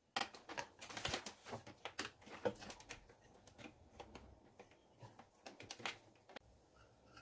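Spatula scraping and tapping against a nonstick pan and a bowl while scooping crumbly semolina halwa: faint, irregular clicks and scrapes, thinning out after about three seconds.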